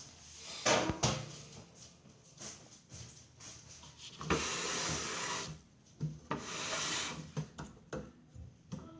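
Hands working on something, with two scrapes or rubs of about a second each and several light knocks and clicks.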